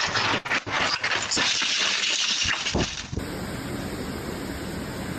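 Storm noise of wind and rain rushing, with gusty surges. A little past three seconds in, it changes abruptly to a steadier, lower rush.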